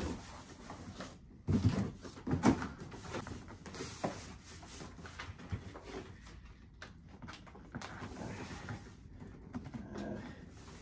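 Cardboard moving boxes being handled: flaps folded and pressed down and boxes shifted, giving scraping and rustling, loudest in a few scrapes about two seconds in, then quieter rustles and light knocks.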